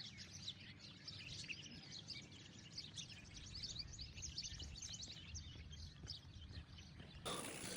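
Faint, rapid chirping of small birds, many short calls a second, over a low rumble. About seven seconds in, a louder rushing noise abruptly takes over.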